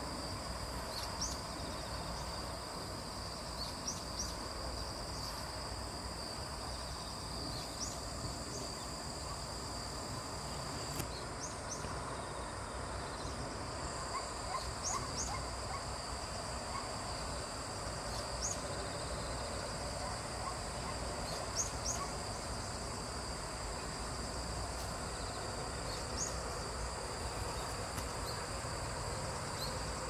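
Outdoor evening chorus of insects, a steady high-pitched trilling drone, with short high chirps every couple of seconds and a low rumble underneath.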